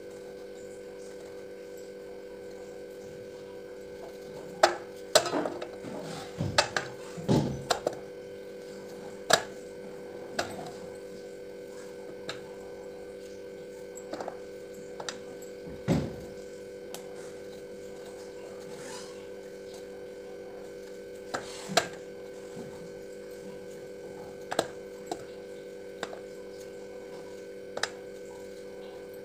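A small knife scraping and clicking against the hard skin of a bottle gourd as it is peeled by hand. There is a busy run of sharp scrapes and clicks between about four and eleven seconds in, then single clicks every few seconds, all over a steady electrical hum.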